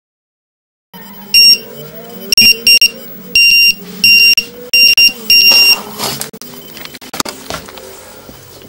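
Carp-fishing bite alarm receiver sounding a run: a string of loud, high-pitched beeps in irregular bursts, the signal that a fish has taken the bait and is pulling line. After the beeps stop, handling noise with a few sharp knocks follows.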